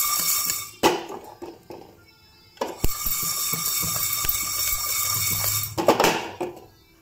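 Coriander seeds, sesame seeds, peppercorns and coconut pieces rattling and shifting inside a pressure cooker as it is shaken to roast the masala, in two spells of a few seconds each. Between them come a few sharp clicks.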